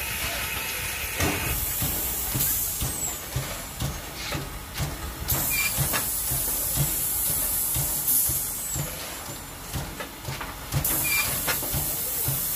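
Norfolk & Western No. 475 steam locomotive standing with steam up, hissing in repeated bursts over a low rhythmic thumping, with a few sharp knocks.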